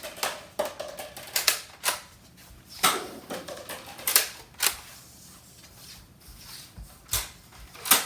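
Nerf blaster being handled and worked: about nine sharp plastic clicks and clacks at uneven intervals.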